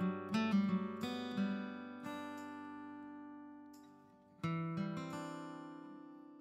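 Outro music on acoustic guitar: plucked notes and chords that ring out and fade, a brief pause just before the middle, then a fresh chord about four and a half seconds in that fades away.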